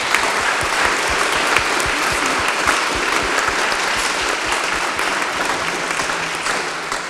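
An audience in a large lecture hall applauding steadily, the clapping starting to fade near the end.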